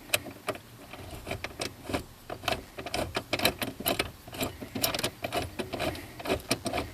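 Socket ratchet clicking in quick, irregular runs as it backs out the loosened steering column pivot bolt.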